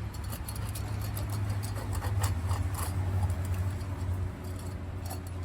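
Scattered light clicks and clinks, like metal parts and tools being handled, over a steady low hum.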